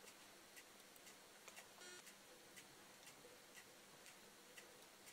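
Near silence: quiet room tone with a faint, regular tick about once a second.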